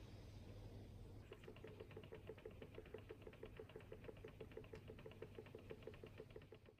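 Faint, even, rapid ticking, about six ticks a second, from a small machine. It starts about a second in and runs on steadily.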